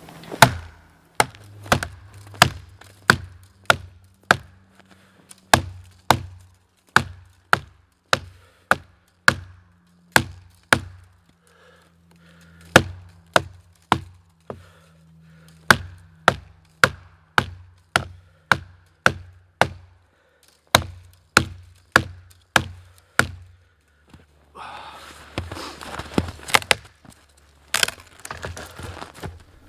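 Hultafors Hultan hatchet chopping into the trunk of a small standing dead tree: steady, sharp blows, about three every two seconds. The blows break off about 23 seconds in, and near the end a stretch of noise comes in with a few more blows.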